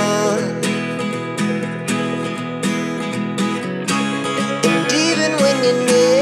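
Background music: strummed acoustic guitar with a melody line.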